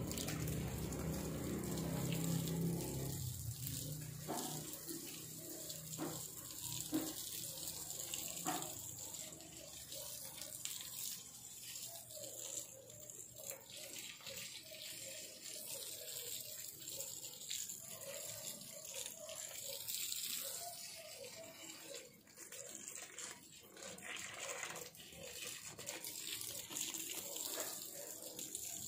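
Water running and splashing, with a few small knocks in the first half.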